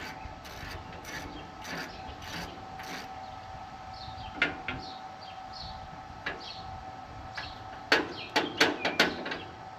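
Hand work on baler hydraulic hoses and fittings: scattered clicks and rubbing, then a quick run of about five sharp knocks a little before the end. Birds chirp in the background, over a faint steady tone.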